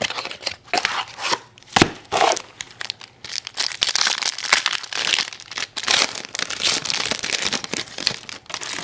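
Trading-card pack wrappers crinkling and tearing as the packs are opened, with sharp clicks and knocks of cardboard being handled. The crinkling is heaviest in the middle.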